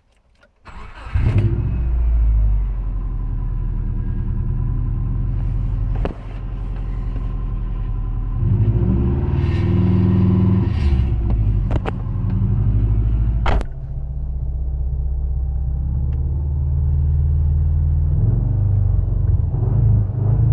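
Subaru EJ205 2.0-litre flat-four engine running, with a failing No. 4 rod bearing that causes rod knock. The sound comes in about a second in, and the engine note rises for a few seconds around the middle. A few sharp clicks are heard.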